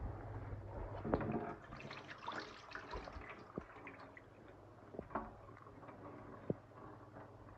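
Rainwater pouring and dripping out of a soaked glove onto a stainless steel sink, with a few light ticks of drops and handling.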